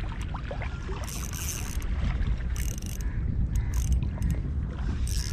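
Wind buffeting the microphone in a steady low rumble, with four short high-pitched rasping bursts spaced roughly a second apart.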